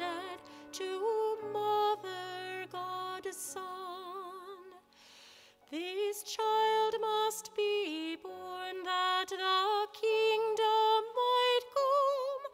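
A woman singing a hymn solo with vibrato, accompanied by grand piano. The singing breaks off briefly about five seconds in, then resumes with a note that slides up into pitch.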